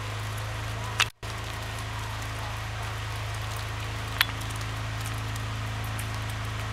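A steady low mechanical hum under a constant hiss, with two sharp clicks, about a second in and about four seconds in. The sound drops out for a moment right after the first click.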